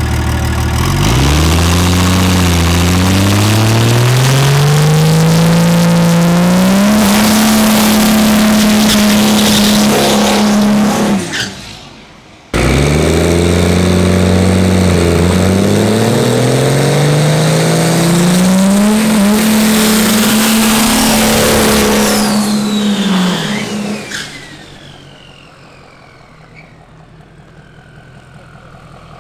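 Cummins diesel drag truck at full throttle: the engine's pitch climbs in steps and then holds high, breaks off sharply about midway, and climbs again. Near the end the engine fades away, leaving a high whine that falls in pitch.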